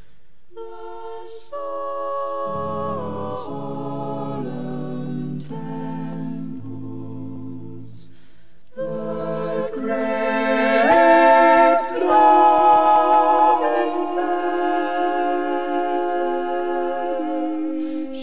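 A cappella vocal ensemble singing a slow part-song in close harmony, close-miked. After a quieter opening phrase and a short break about nine seconds in, the voices swell louder, then settle into long held chords.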